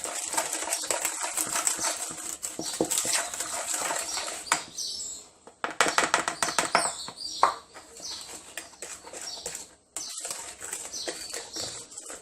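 Batter being mixed by hand in a bowl: rapid, dense clicking and scraping strokes, with two brief pauses about five and ten seconds in.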